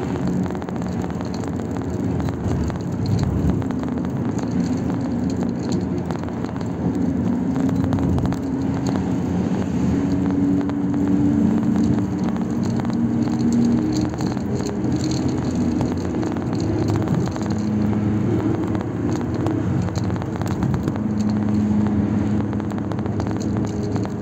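Car driving along a road, heard from inside: a steady engine hum whose pitch shifts now and then, over road and tyre noise.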